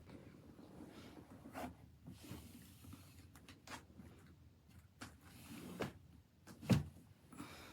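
Faint scattered clicks and soft rustles, with a somewhat louder knock near the end.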